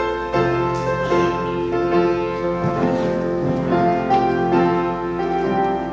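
Instrumental introduction to a congregational hymn, played on a keyboard instrument as a series of held chords.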